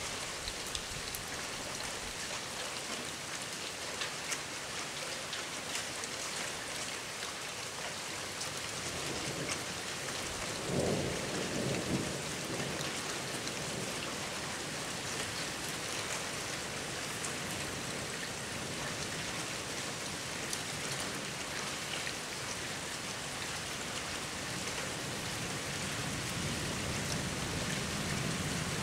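Downpour during a squall-line thunderstorm: rain falls steadily with scattered drops ticking, and a brief low rumble of thunder comes about eleven seconds in.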